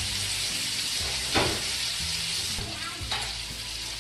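Steak and melting butter sizzling steadily in a hot frying pan, the stage where butter goes in to caramelize the seared steak. A single sharp tap comes about a second and a half in.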